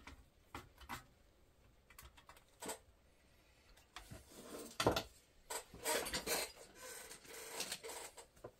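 Circuit board and metal chassis of a Sony SL-HF100 Betamax VCR being handled during reassembly. First a few light clicks, then a busier stretch of knocking and rubbing, with the loudest knock about five seconds in.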